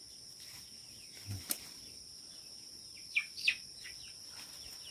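A steady high insect trill of crickets or similar insects, with a single sharp click about a second and a half in and two short falling bird chirps about three seconds in.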